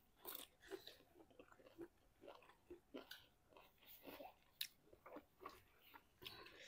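Faint chewing and biting of food close to the microphone, a string of short soft mouth sounds about two a second.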